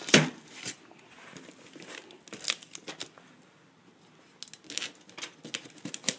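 A cardboard shipping box being handled while its packing tape is cut and pulled open: crinkling, tearing and scraping sounds. It opens with a sharp knock, and there is a quiet spell about two-thirds of the way through.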